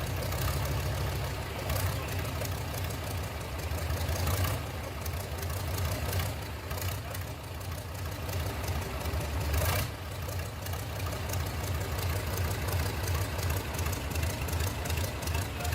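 Tatra T815 air-cooled V10 diesel engine running steadily with a low rumble and diesel clatter, with a brief louder burst about ten seconds in.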